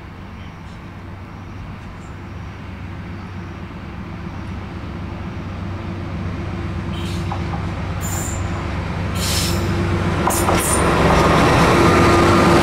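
A JNR Class DE10 diesel-hydraulic locomotive hauling a container freight train, approaching and passing close by. The steady drone of its diesel engine grows louder throughout. From about seven seconds in, several short high-pitched wheel squeals are heard. Near the end the locomotive passes with a loud rumble of wheels on the rails.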